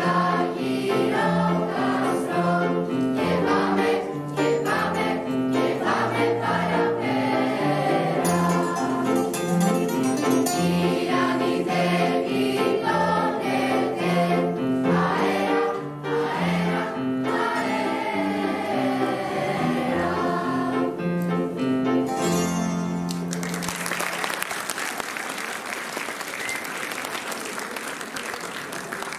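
Choir singing with an ensemble of bouzouki-type plucked lutes, guitars and piano. The song ends about 23 seconds in, and audience applause follows, slowly fading.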